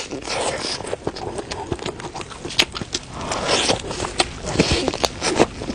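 Close-up eating sounds: a person chewing chicken, with irregular wet mouth clicks and smacks.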